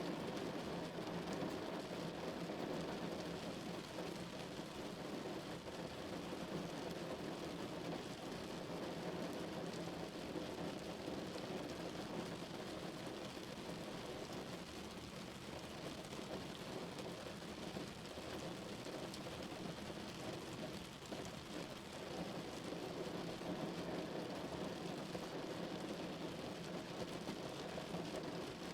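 Steady rain drumming on a car's roof and windows, heard from inside the cabin, a dull, muffled patter.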